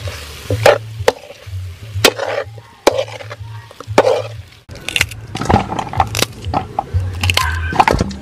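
Metal ladle scraping and knocking against a metal wok as chopped raw mango is tossed, with many sharp clinks and scrapes, over background music with a low bass beat.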